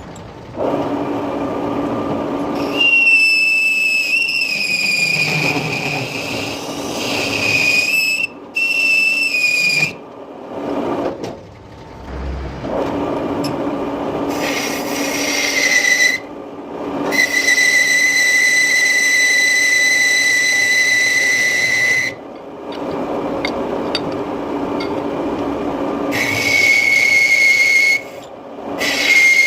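Lathe turning a cast iron part, the cutting tool giving a steady high squeal as it cuts, in several long stretches broken by short pauses, over the steady running noise of the lathe.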